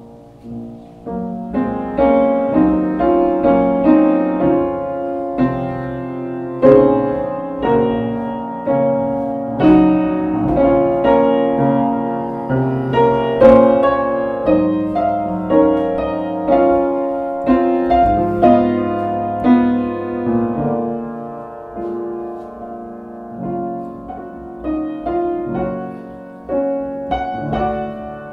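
Piano music: notes and chords struck one after another and left to ring, growing louder and then softer again.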